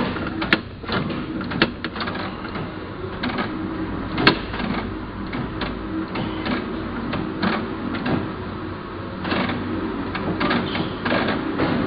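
Heidelberg Cylinder S press, set up for die cutting, running: a steady mechanical hum with repeated sharp clacks and clatter from the moving press.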